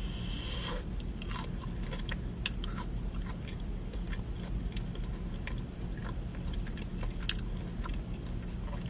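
Close-up chewing of a crunchy breaded Korean fried cheese stick, with scattered crisp crunches and wet mouth clicks over a steady low hum.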